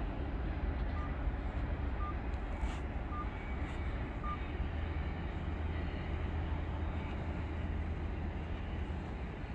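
Steady low rumble of a freight train running on after it has passed. Four short beeps about a second apart sound over it in the first half.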